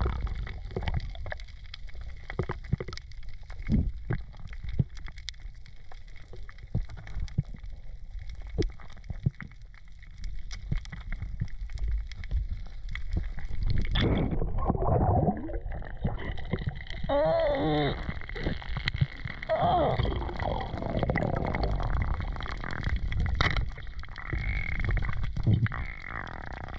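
Underwater sound over a coral reef: a low rumble of moving water with scattered sharp clicks. From about halfway there is louder, wavering gurgling.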